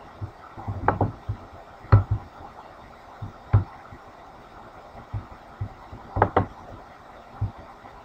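Scattered sharp clicks from a computer mouse and keys as a schematic is edited, with a quick double click about six seconds in, over faint low thumps.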